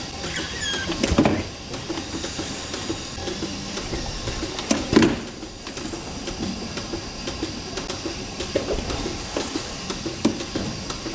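Lely A5 milking robot running under a cow while its arm works to attach the teat cups: a steady mechanical sound with regular clicking, and louder knocks about a second in and about five seconds in.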